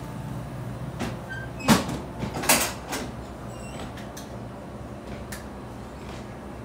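A stainless steel two-door reach-in refrigerator's door being handled: a few clunks and knocks, the loudest about two seconds in, over a steady low hum.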